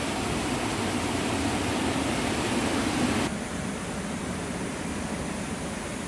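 Steady rush of a waterfall and river rapids. About three seconds in the sound changes abruptly to a slightly quieter, softer rush.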